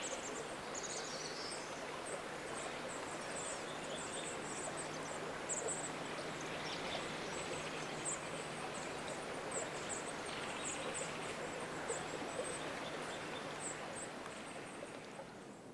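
Wet rainforest ambience: a steady hiss of water with thin, very high bird calls repeating irregularly over it, fading near the end.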